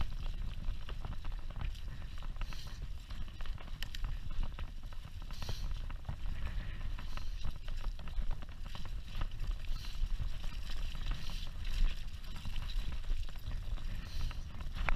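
Mountain bike rolling over a rough, rutted dirt track: frequent short rattles and knocks from the bike and tyres over a steady low rumble.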